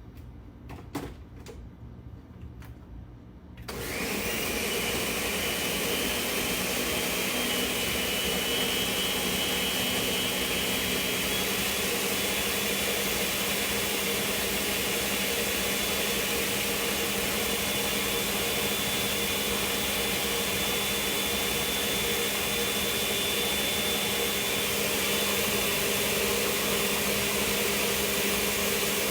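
A few light knocks, then about four seconds in a countertop blender switches on and runs steadily and loudly, pureeing green salsa for the pozole.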